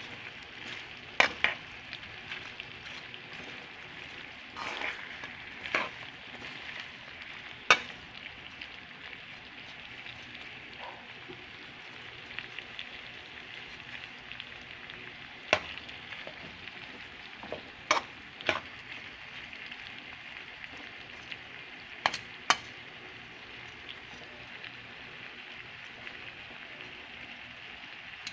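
Pork steak pieces and onion rings sizzling steadily in a frying pan. Sharp clicks of metal tongs ring out every few seconds as the pieces are turned, two close together at a time in places.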